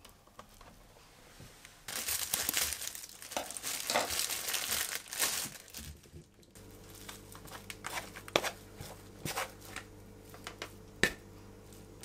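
A plastic bag crinkling and rustling as it is handled for a few seconds, then a few light knocks as vegetables are set down on the counter.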